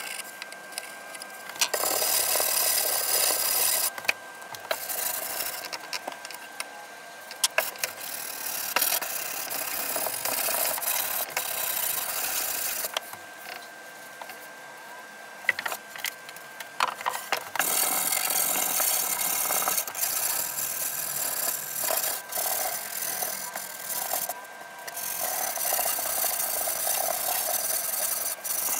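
Hand tools working the live edge of a cypress board: a chisel scraping off bark, then hand sanding in rubbing strokes. The scraping and sanding come in stretches of a few seconds with short pauses and occasional clicks from handling.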